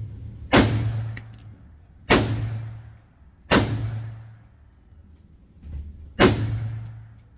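Four single shots from a Riley Defense AK-47 in 7.62 mm, fired at uneven intervals, each sharp crack trailing off in echo over about a second.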